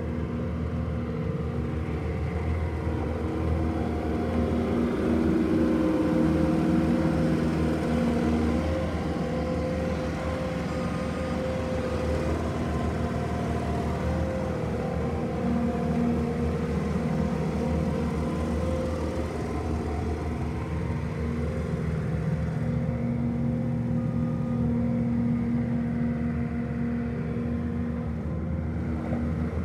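Bobcat A770 skid steer's diesel engine running steadily, its pitch rising and falling a few times as the revs change, a little louder around a quarter of the way in and again near the end.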